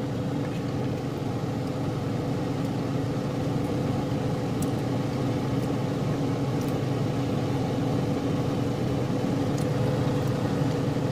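A steady mechanical hum with a few faint clicks.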